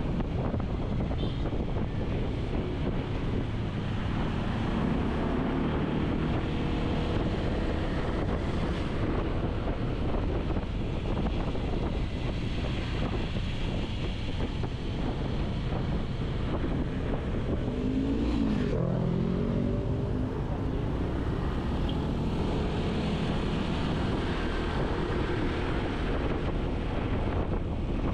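Road traffic under steady wind rumble on the microphone while travelling along a road, with vehicle engines rising and falling in pitch as they pass, the most marked about two-thirds of the way through.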